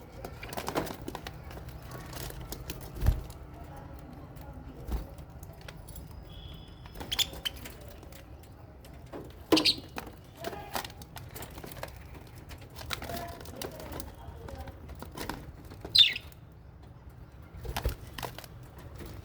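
Aviary of budgies and lovebirds: wings flapping, with a few short sharp chirps and some low knocks now and then.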